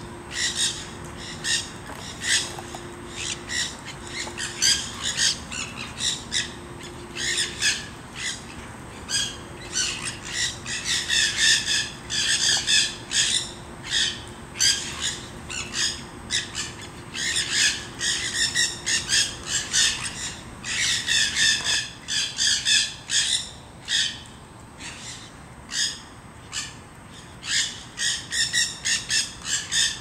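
A flock of monk and nanday parakeets squawking nonstop: harsh, shrill calls overlapping in rapid succession, thickest in the middle stretch. A faint steady hum sits underneath, on and off, for the first two-thirds.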